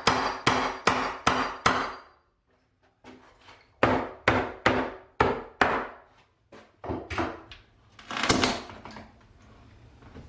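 Hammer blows on a wooden wall stud, knocking it loose to take it out. Two runs of steady blows, about two and a half a second with a pause of about two seconds between, then a few lighter knocks and one longer, duller knock near the end.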